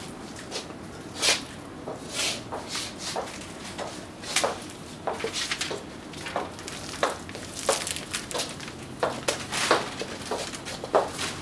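Footsteps on a hard office floor: irregular sharp clicks and knocks, about one or two a second.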